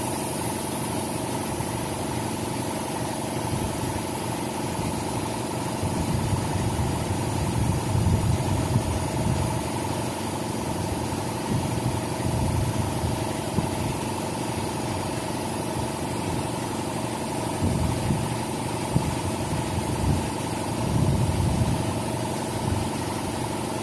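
Air compressor running steadily with air hissing into a wide 250 rear motorcycle tire whose bead has not seated, so air leaks out past the bead and the pressure will not build past about 15 pounds.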